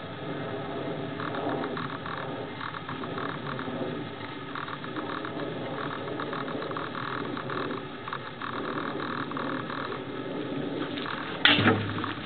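Steady, irregular clicking from an ageing camera's own mechanism, over background noise. Near the end there is one loud thump.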